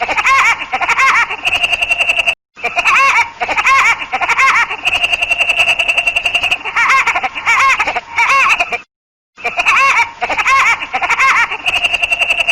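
Woody Woodpecker's cartoon laugh: a rapid, high-pitched, warbling run of rising-and-falling notes. It plays three times, with short breaks about two and a half and nine seconds in.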